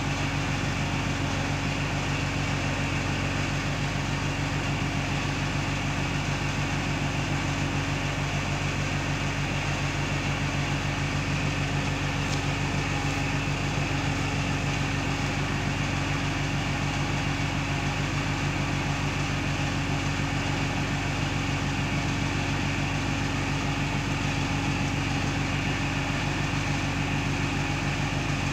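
Steady low machine hum with a constant drone and no change in level.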